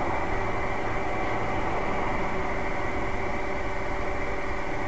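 Steady car engine and road noise: an even, continuous hiss-like noise with a faint constant hum, and no impacts.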